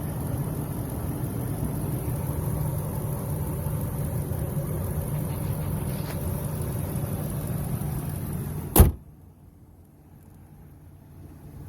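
2001 Ford F-150's engine idling steadily; the truck has a misfire. About nine seconds in comes one loud sharp thump, after which the engine sound is much fainter.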